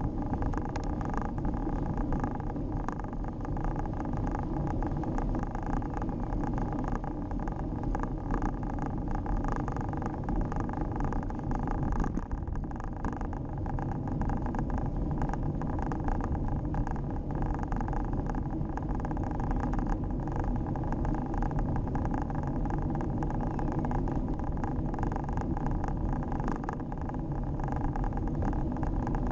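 Scott X40 cross-country mountain bike rolling along a rough tarmac lane: a steady rumble of tyres on the chip surface and wind on the camera microphone, with frequent small knocks and rattles from bumps in the road.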